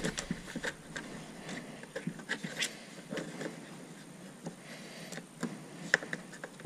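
Hand-handling noises: small clicks and rustles of a wiring harness and plastic trim being worked back into place by hand, with one sharper click about six seconds in.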